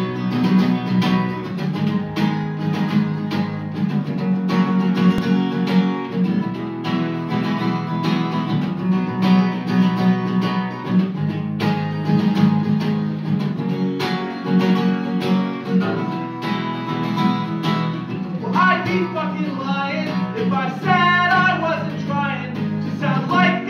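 Acoustic guitar strummed steadily, chord after chord, played live. About 18 seconds in, a man's singing voice comes in over the guitar.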